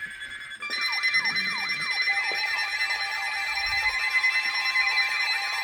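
Weather alert radio receivers sounding their alarms for an incoming warning alert. Several steady beeping tones are layered with a repeating falling chirp, about three a second, coming in loudly about a second in over a fainter steady tone.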